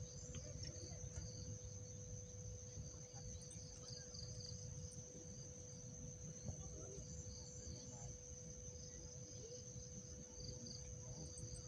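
Steady high-pitched trilling of an insect chorus, with a faint steady lower hum, over a low rumbling noise.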